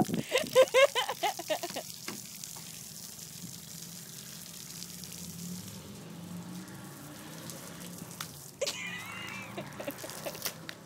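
Garden hose water running and splashing on concrete with a steady hiss. A toddler babbles loudly in the first two seconds and gives a short high-pitched squeal about nine seconds in.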